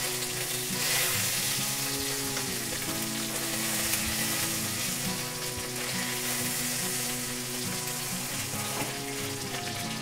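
Taki (spotted snakehead) fish shallow-frying in hot oil in a nonstick pan with a steady sizzle, while a silicone spatula turns them over.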